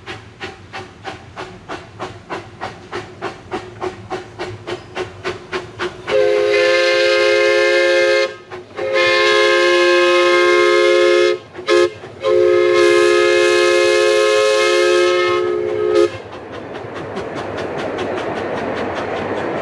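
Redwood Valley Railway 15-inch-gauge steam locomotive chuffing at about three exhaust beats a second, then blowing its steam whistle in four blasts, long, long, short, long, the standard grade-crossing signal. Its train of open passenger cars then rolls over the wooden trestle with a rising rumble.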